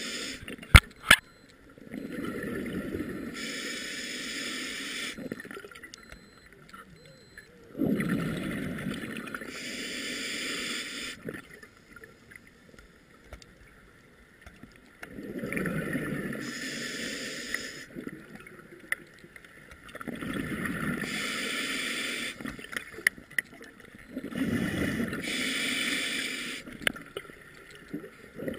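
A scuba diver breathing through a regulator underwater: each breath is a hiss from the regulator and a bubbling gurgle of exhaled air. There are about five breaths, a few seconds each, with quiet gaps between them, and two sharp clicks about a second in.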